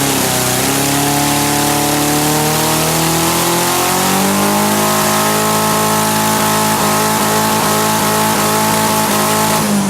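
Mazda four-cylinder engine fitted with four small K03 turbochargers, one per cylinder, under hard acceleration: the revs dip briefly, then climb steadily with a step up about four seconds in, and drop off as the throttle is released near the end.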